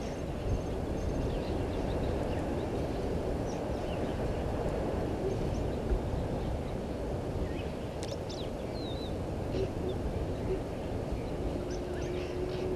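Steady low outdoor background noise with faint, scattered bird chirps and one short whistled glide; a steady low hum comes in near the end.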